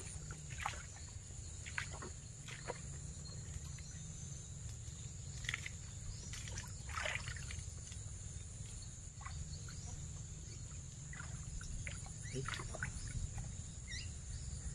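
A steady high insect drone, with irregular short splashes and sloshing as a person wades through shallow, muddy floodwater and crouches in it.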